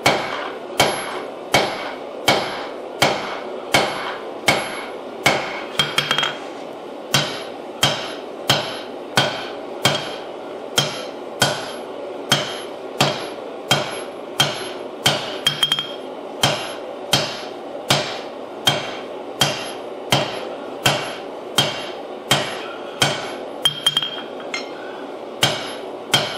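Hand hammer blows on a hot damascus steel billet over the anvil, drawing it out: an even rhythm of a little under two strikes a second, each with a short ring, and a few lighter extra taps between blows.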